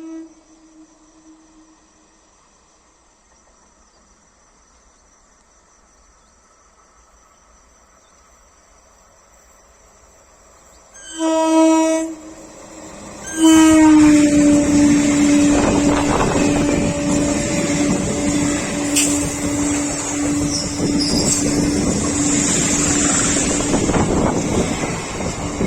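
Indian Railways electric local train (EMU) coming up fast and passing close by. A horn fades out at the start and the train's noise builds slowly out of near-quiet. Two short horn blasts come about 11 and 13 seconds in, then one long horn held for about ten seconds over the loud rush of the coaches going past, its pitch dropping slightly as the train passes.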